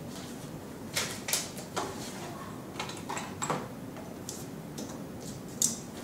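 Small plastic keystone jacks and their cardboard box being picked up and set down on a tabletop: a scattering of irregular light clicks and knocks.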